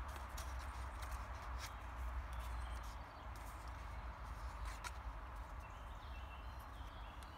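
Cardboard phone packaging and paper cards being handled: soft rustles and a few light taps and clicks as sleeves are opened and cards slid out, over a steady low rumble.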